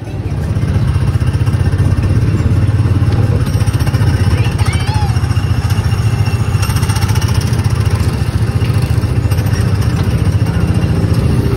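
Small gasoline engine of a Tomorrowland Speedway ride car running, a steady, fast-pulsing low rumble heard from the driver's seat.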